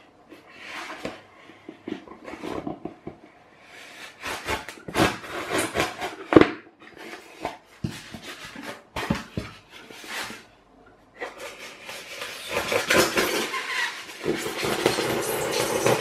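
Knife cutting through a sheet of scrap packaging foam: irregular scratchy strokes, turning into a continuous rasping cut about eleven seconds in.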